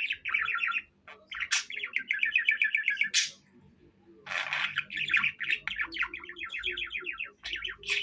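A male budgerigar warbling: runs of fast, evenly pulsed trilled chatter, broken by a short pause about halfway through, with a few sharp chirps near the end.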